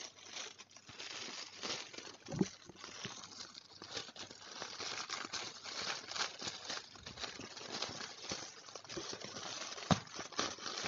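Plastic courier mailer bag crinkling and rustling as hands work it open, a dense run of irregular crackles with a couple of duller knocks.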